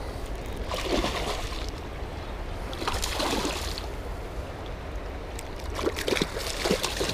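Steady rush of high water running through a dam, with splashing from a hooked chain pickerel thrashing at the surface as it is reeled in, loudest about a second in and again about three seconds in.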